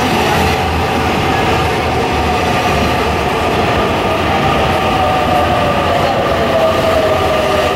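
Mexico City Metro train running in along the station platform, slowing as it pulls in: a steady rumble under an electric whine that falls slowly in pitch.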